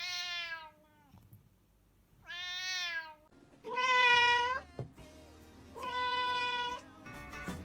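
Domestic cat meowing four times, each meow about a second long with short pauses between. The first meow falls in pitch and the last two are held level.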